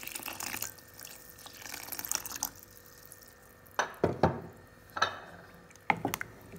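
A stream of water pouring into a steel saucepan of stewed tomatoes, stopping within the first second and dying away in patches. Then a wooden spoon stirs the pot, knocking sharply against its sides several times near the end.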